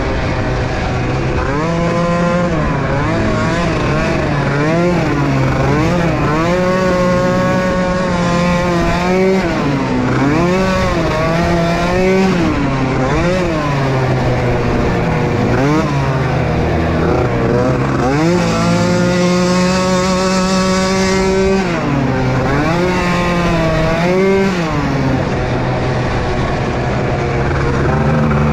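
Small youth race ATV engines revving up and down over and over as the throttle is worked around the motocross track, over a steadier lower engine note. About two-thirds of the way through, one engine holds a high, steady note for a few seconds.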